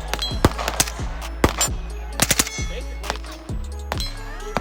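Gunshots over background music: a few single shots, then a quick string of four or five about two seconds in.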